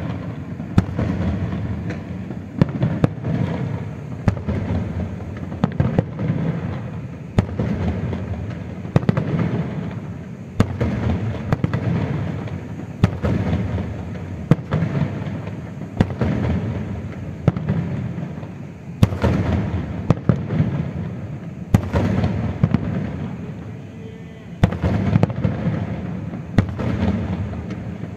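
Aerial fireworks display: a steady run of sharp bangs, about one every second or two, over a continuous low rumble of bursts.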